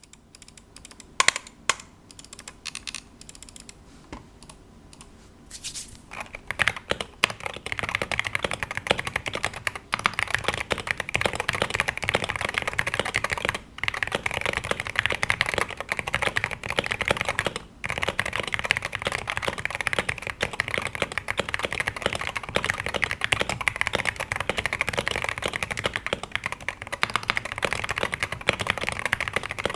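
Typing on a Wooting 60HE mechanical keyboard with Gateron Lekker linear magnetic switches and stock PBT keycaps, dampened by case foam, tape and o-ring mods. A few scattered keystrokes come first, then from about six seconds in it turns to continuous fast typing, broken by two brief pauses.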